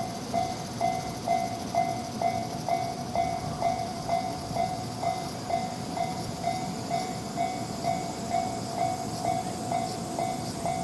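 Japanese railway level-crossing warning bell ringing steadily at about two strokes a second, with a train running past over the crossing.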